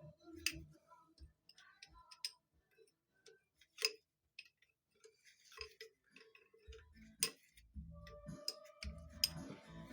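Faint, scattered clicks and taps of hand tools and metal fittings during steering-gear work, with a few low knocks; the sharpest clicks come about half a second, four seconds and seven seconds in.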